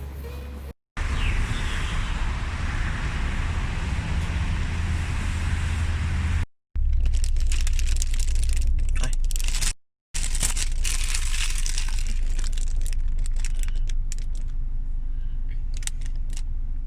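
Outdoor background noise with a heavy low rumble and scattered clicks, in several short clips that cut in and out abruptly.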